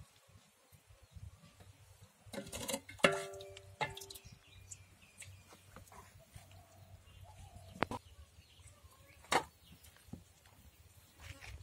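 A metal ladle knocking against a metal cooking pot: a short cluster of clinks about two to four seconds in, one ringing briefly, then two more single knocks later on. Faint bird chirps in the background.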